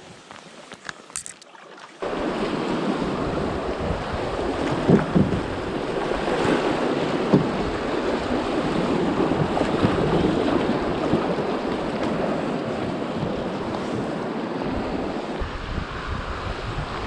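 Rushing river rapids around a small inflatable raft, water splashing against the raft and over the bow, with wind buffeting the microphone. The first two seconds are quieter, with a few light handling clicks; then the water noise starts suddenly and stays loud, with a couple of sharp knocks a few seconds in.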